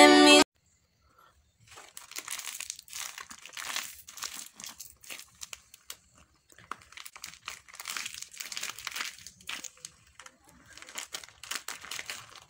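Plastic Lotte Choco Pie wrapper crinkling as hands crumple and twist it. The crinkling starts about a second and a half in and comes in clusters with short pauses.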